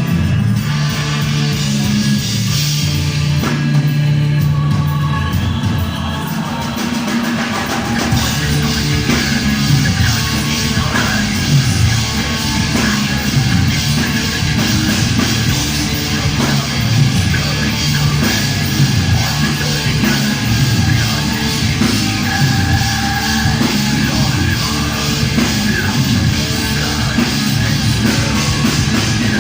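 Heavy metal band playing live: sustained low guitar notes for the first several seconds, then the drums and full band come in about seven seconds in with a dense, driving rhythm.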